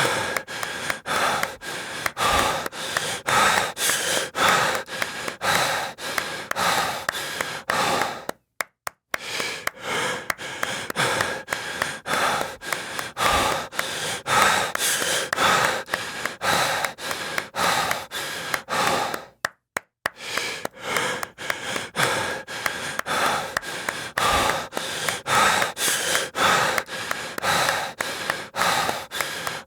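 A person breathing heavily in quick, rhythmic, panting breaths, about two to three a second, stopping briefly twice.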